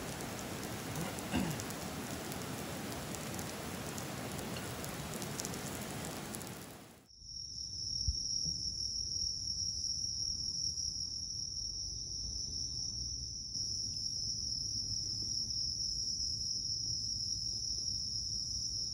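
Beef tongue sizzling in an iron skillet, a steady hiss that fades out about seven seconds in. Then a steady high-pitched chorus of night insects such as crickets, a little louder toward the end.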